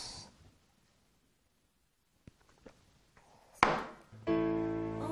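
Near silence with a few faint clicks, then a single sharp knock about three and a half seconds in. Soft background music with held notes starts shortly after.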